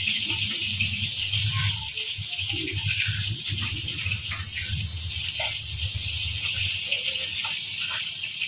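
Irregular crisp snips of leafy greens being cut against a bonti blade, over a steady hiss and a low hum.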